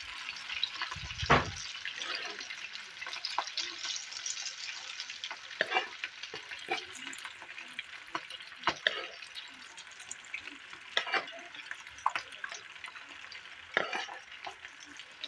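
Potato snack pieces deep-frying in hot oil in a pan: a steady sizzle with sharp crackling pops every second or so. A single louder knock comes about a second in.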